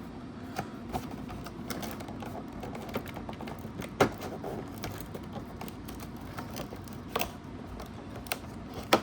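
Cardboard advent calendar and its plastic tray being handled: scattered clicks and taps, the loudest about four seconds in, with others a little after seven seconds and at the end, over a steady low hum.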